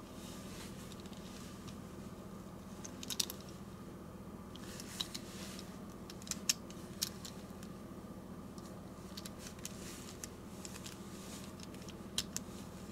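Tomica diecast model car (Mazda Savanna RX-7, SA22C) handled between fingers: scattered light clicks and taps of fingers and nails against the small metal-and-plastic car, a few at a time, over a steady low hum.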